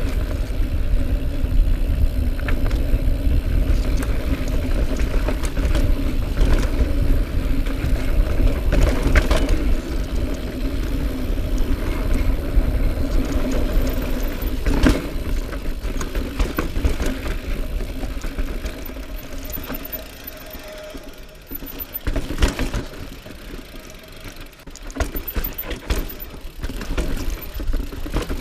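2018 Norco Range full-suspension mountain bike descending a rocky dirt trail: wind on the microphone and tyre rumble, with knocks and rattles as the wheels hit rocks. A steady hum runs through the first two-thirds; after that the noise eases and the knocks come more sharply and sparsely.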